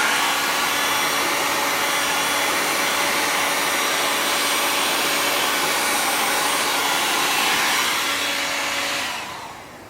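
A 2000-watt heat gun running steadily, a rush of air with a steady fan hum, blowing over an oxidised polypropylene-EPDM mud flap to melt its top surface. It is switched off about nine seconds in and winds down.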